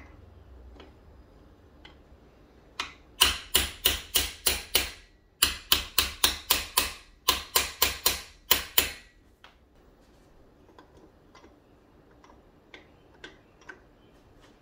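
Hand socket ratchet clicking as it runs down bolts on an engine block's crankshaft main bearing caps: three quick runs of sharp clicks, about four or five a second, each lasting about a second and a half. Faint scattered ticks of tools being handled follow near the end.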